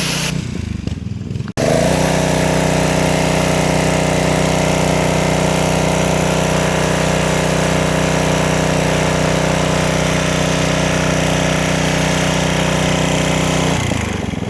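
Gas pressure washer running under load with its water jet spraying concrete: a steady engine note with a hiss of spray. The sound dips and cuts off for a moment about a second and a half in, then resumes and holds steady, and the engine note falls away near the end.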